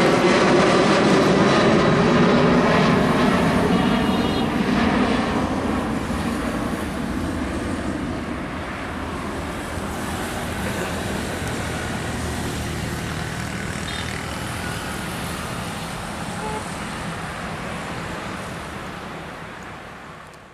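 Twin turbofan engines of an Embraer E190 airliner at take-off thrust, heard from the ground as it climbs away: loudest at first with a tonal whine in the noise, then steadily fading and dropping away abruptly near the end.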